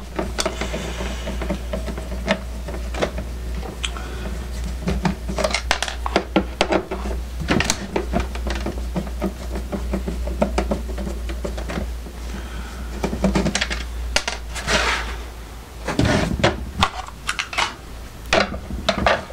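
Screwdriver and hands working on a Lenoxx Sound BP-103 boombox cabinet as its screws are taken out: irregular small clicks, taps and rattles, with a louder run of knocks around fifteen to seventeen seconds in, over a steady low hum.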